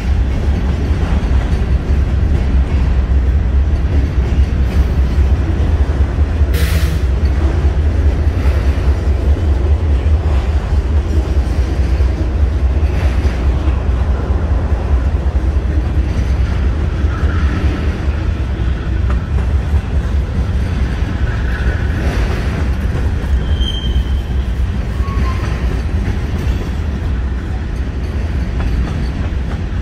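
Freight cars rolling past on the rails with a steady low rumble of wheels on track. There is one short sharp noise about seven seconds in, and a few faint brief wheel squeals later on.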